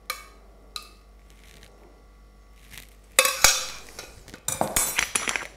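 A metal spoon clinks twice against a stainless steel saucepan near the start, each clink leaving a short ringing tone. After a quiet stretch, a louder run of clattering and handling noise from kitchenware follows in the second half.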